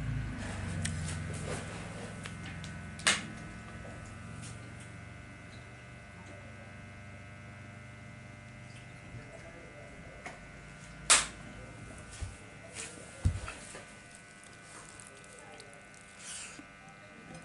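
Steady electrical buzz made of several tones, under a few sharp knocks and clicks as a metal plate of rice is handled during hand-eating. The loudest knocks come about three, eleven and thirteen seconds in.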